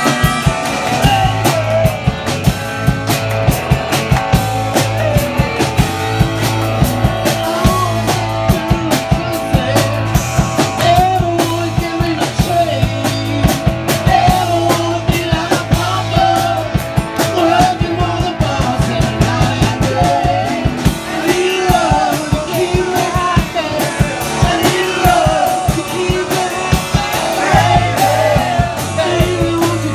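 Live rock band playing: electric guitars and a drum kit keeping a steady beat, with a voice singing over them.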